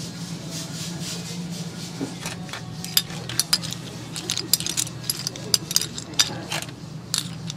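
Dishes and cutlery clinking: a quick, irregular run of sharp clinks starting about two seconds in and stopping shortly before the end, over a steady low hum.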